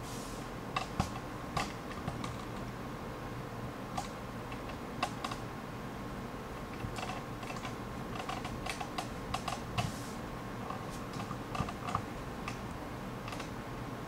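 Paintbrush working acrylic paint onto the painting: scattered light clicks and taps at an uneven pace, over a steady hiss with a faint constant hum.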